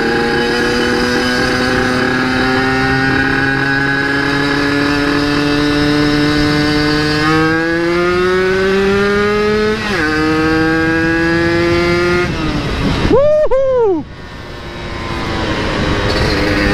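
Yamaha RX-King two-stroke single, bored to 135 cc and fitted with a BSX aftermarket exhaust, accelerating hard. Its note climbs steadily and drops at upshifts about ten and twelve seconds in. Near the end come two quick rev blips rising and falling, then the engine comes off the throttle and picks up again. The carburettor jetting is still being tuned.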